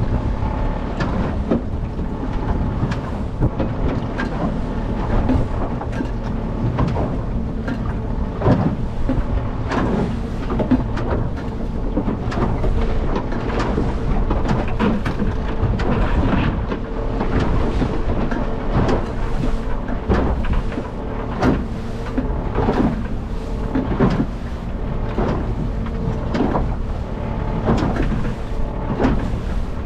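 Small aluminium boat rocking in rough, windy chop: a steady low rumble of wind and water with frequent knocks and splashes against the hull, and a faint steady motor hum underneath.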